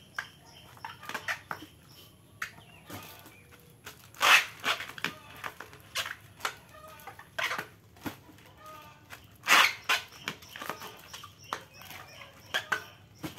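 Small plastic fish bags handled and crinkled, with water poured and splashing, while betta fish are bagged. There are short sharp sounds throughout, with three louder ones about four, seven and a half and nine and a half seconds in.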